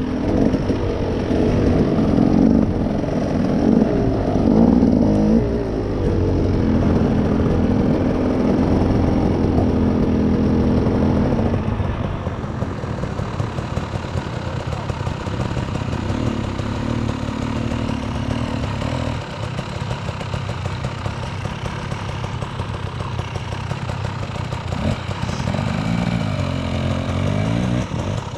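Off-road vehicle engine revving up and down under load for about the first twelve seconds, then running steadier and a little quieter, with another rise and fall in revs near the end.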